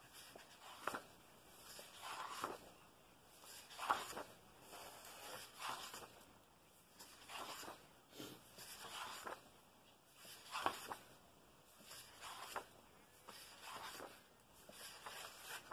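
Colouring book pages being turned one after another, the paper swishing about every one and a half to two seconds, with a sharper flap on a few of the turns.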